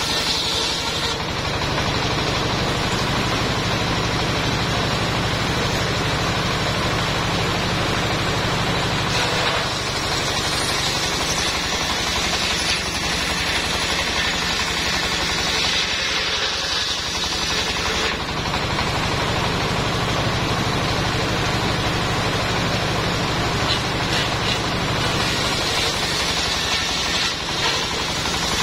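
Engine-driven mobile circular sawmill: the engine runs steadily under load while the circular saw blade rips lengthwise through a log. The cutting noise swells at the start and again near the end as the log is pushed through.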